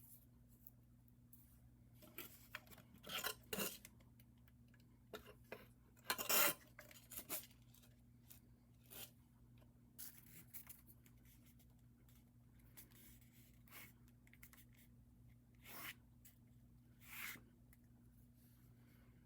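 Irregular short scraping and scratching sounds with a few clicks, from small hand work on craft parts, over a steady low electrical hum.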